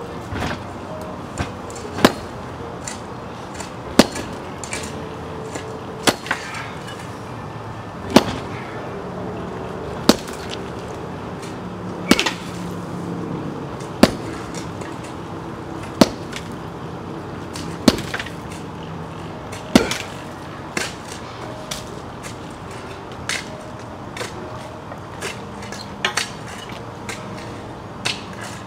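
Sledgehammer blows on a concrete patio slab, sharp cracking impacts about one every two seconds; the blows in the last third are weaker.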